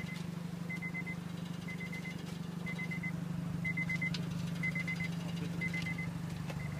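Car warning chime beeping in quick groups of three or four high pips, about once a second, over a steady low hum.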